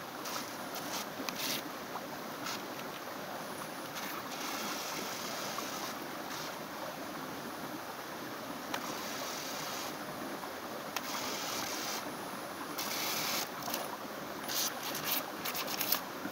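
Steady rush of river water, with a mini RC speed boat's two small propellers whirring and hissing through the water in spurts that start and stop several times as it is driven.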